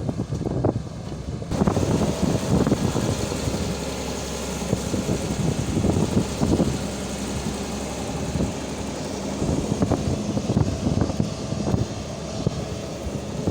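Excavator's diesel engine running steadily under load, with frequent short knocks and clatter over it.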